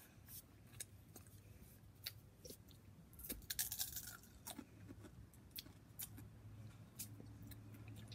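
Faint wet mouth clicks and lip smacks from fingers being licked and sucked, with a brief louder scratchy noise about three and a half seconds in.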